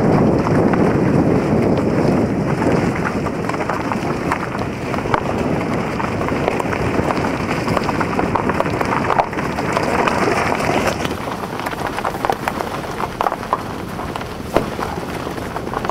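Car rolling over a loose gravel road: tyres crunching, with a constant scatter of small clicks and pops from stones under the wheels over a steady rumble of road noise, louder for the first few seconds.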